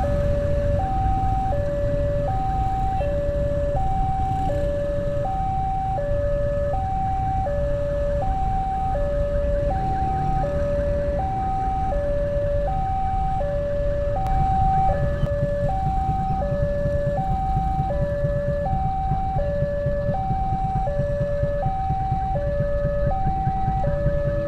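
Automatic level-crossing warning siren sounding a steady two-tone alarm, alternating between a higher and a lower tone about every half second: the signal that a train is approaching and the barriers are closed. Motorcycle and car engines idle underneath.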